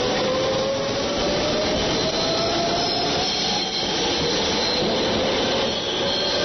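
Tobu 100 series 'Spacia' electric train pulling away from the platform. Its motors give a steady whine that rises slowly in pitch as it gathers speed, over the noise of wheels running on the rails.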